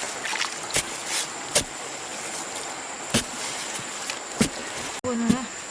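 Five sharp, irregularly spaced knocks, like hand-tool strikes on wood, over a steady high-pitched insect drone.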